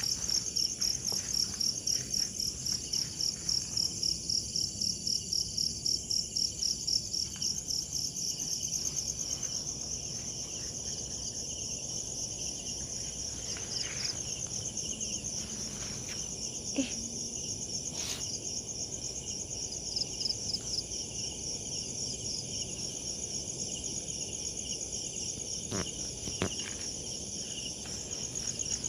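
Insects chirping in a steady, high-pitched chorus of rapid pulses, with a few faint clicks near the middle and toward the end.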